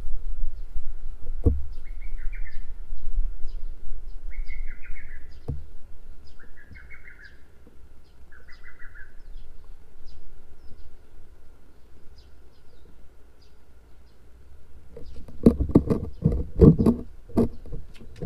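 A small bird chirping in four short phrases over a faint steady high hum, with a couple of soft thumps. Near the end comes a run of loud knocks and rubbing right on the microphone.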